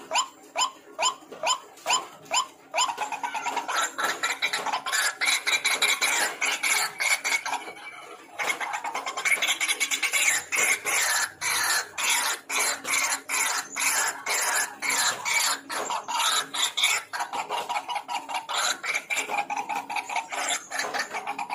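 White-breasted waterhen (ruak-ruak) calling. First comes a run of evenly spaced calls, about two and a half a second; from about three seconds in they become a dense chorus of overlapping calls that briefly thins around eight seconds.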